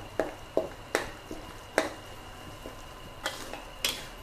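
Metal spatula knocking and scraping against an aluminium wok while stirring frog meat through thick curry paste, about six sharp clacks at uneven intervals.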